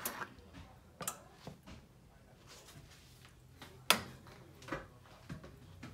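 A metal spoon scraping and knocking against a plastic mixing bowl and a metal baking pan as thick spinach-artichoke dip is scooped out and spread. There are half a dozen sharp clicks, the loudest about four seconds in.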